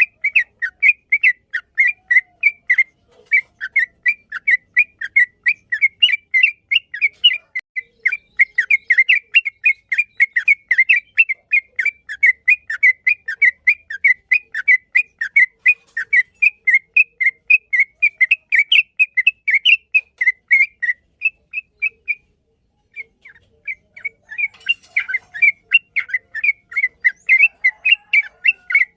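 Yellow-vented bulbul (trucukan) singing a long, rapid run of short whistled notes, about four to five a second, breaking off briefly about two-thirds of the way through before resuming.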